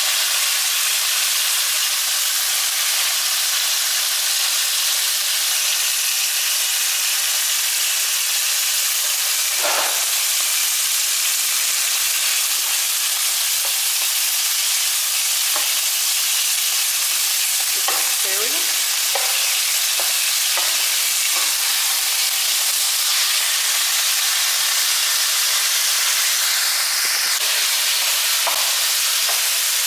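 Onion, garlic and sliced chicken breast sizzling steadily in hot oil in a nonstick frying pan, with a plastic spatula now and then knocking and scraping against the pan as it stirs.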